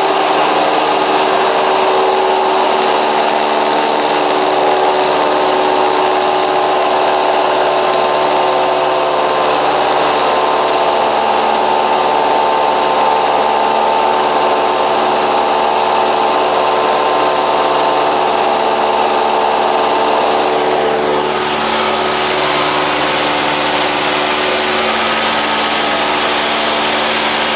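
Cessna 172's piston engine and propeller running steadily at a constant note. About 21 seconds in, the engine note drops a little in pitch and gets slightly quieter, then holds steady again.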